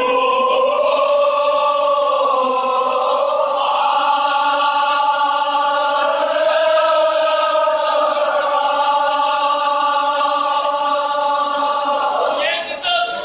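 Group of mourners chanting a Kashmiri marsiya elegy together, drawing out one long note that slowly rises and falls in pitch. The chant breaks off about a second before the end.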